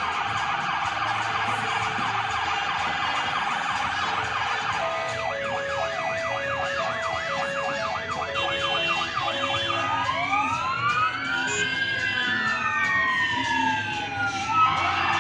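Vehicle sirens sounding in turn through their patterns. First a fast yelp; about five seconds in, a slower warble over a two-note hi-lo tone; from about ten seconds in, several slow rising and falling wails overlapping; near the end the fast yelp comes back.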